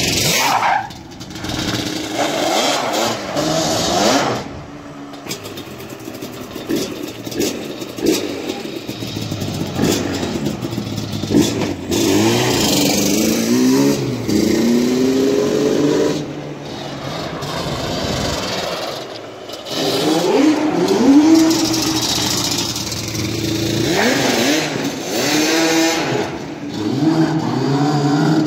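Yamaha Banshee 350's twin-cylinder two-stroke engine, fitted with aftermarket exhaust pipes, being ridden hard: it revs up in quick rising sweeps and falls back again and again, with brief drops off the throttle about four seconds in and again past the middle.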